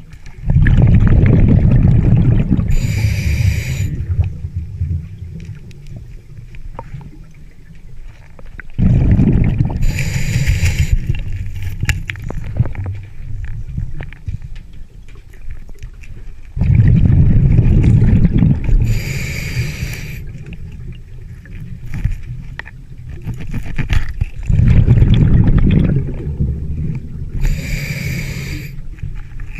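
Scuba diver breathing through a regulator underwater: a loud bubbling rumble of exhaled air, then a shorter hissing inhale with a faint whistle, repeating about every eight seconds, four breaths in all.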